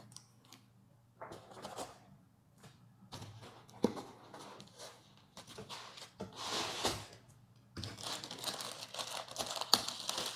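Packaging being handled: scattered rustles and knocks as cables and a foam packing insert are moved, then dense crinkling of a plastic bag being pulled open around the unit in the last few seconds.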